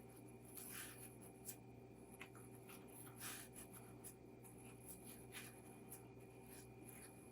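Faint, scattered rustling of a folded napkin being handled as its layers are pulled up by hand, over a low steady hum.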